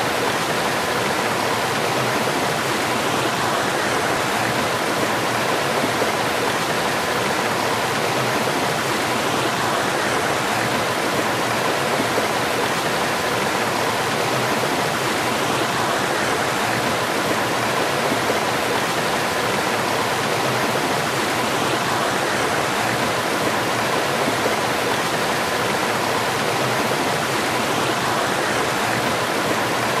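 Small stream spilling over a rocky cascade into a pool: steady rushing, splashing water.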